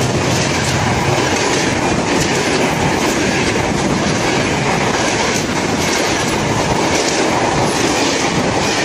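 Passenger coaches of a train rushing past close by at speed: a loud, steady rush of wheels running on the rails. A low hum fades out in the first second or so.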